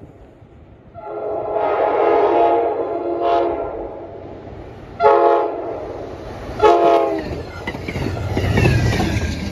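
Amtrak train's air horn sounds one long blast and then three short ones as the train approaches. Near the end the train passes close at speed, a loud rush of rumbling wheels and hiss as it throws up snow.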